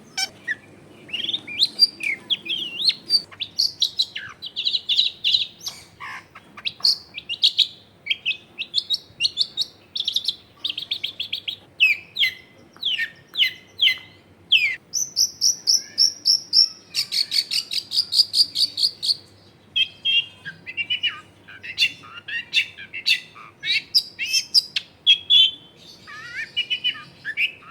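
Long-tailed shrike singing a long, varied song of quick chirps and slurred whistled notes, with fast, even trills about halfway through.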